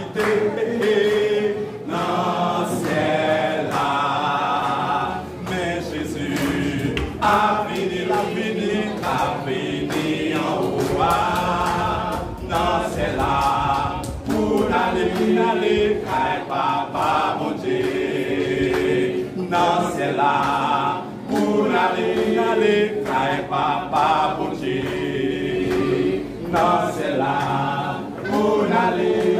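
A men's gospel vocal group singing a hymn together, several voices in harmony.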